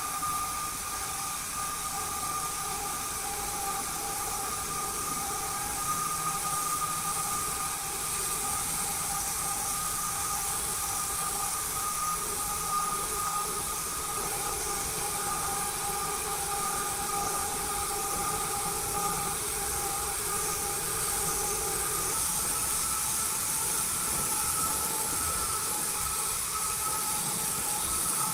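A motor running steadily, a high whine over a hiss, with no pauses.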